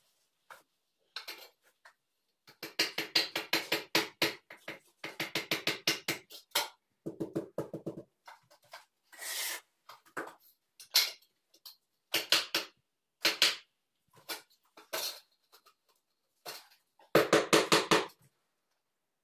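Runs of quick, sharp taps, several a second, with short pauses between: hand tools tapping a ceramic wall tile as it is bedded into mortar. The loudest run comes near the end.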